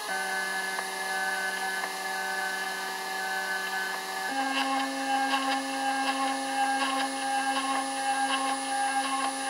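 Stepper motors of a homebuilt CNC driving the laser head around a cutting path: a steady whine of several tones whose pitch jumps when the move changes, at the very start and again a little over four seconds in. Faint irregular ticks join in during the second half.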